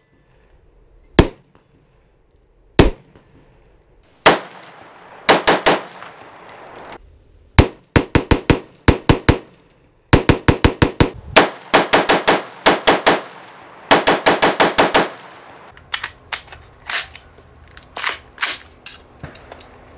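AR-15 rifle with an Armalite tunable muzzle brake, firing semi-automatic. A few single shots are followed by fast strings of about four shots a second, with fainter shots near the end. The brake has a 1/16-inch hole drilled in its top puck to stop muzzle rise.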